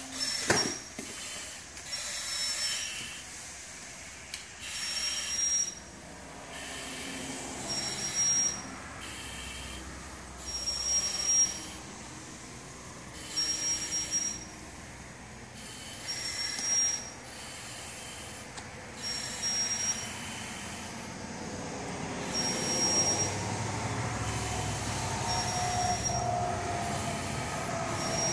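Firefighter breathing through an SCBA face mask and demand regulator: a hiss with a thin high whistle on each breath, slow and regular, about every three seconds. In the last few seconds a low rumble with a slowly falling tone rises underneath.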